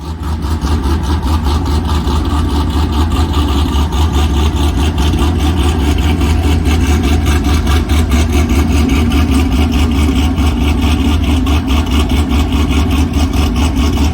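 Cammed Pontiac G8 GT's 6.0 L LS V8 idling loud and steady with an even, choppy pulse from its aftermarket camshaft, starting abruptly at the beginning.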